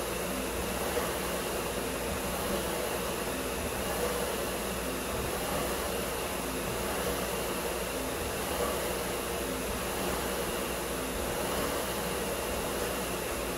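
Concept2 SkiErg's air-resistance fan flywheel whirring under hard pulling, the whoosh surging with each double-pole stroke about every second and a half.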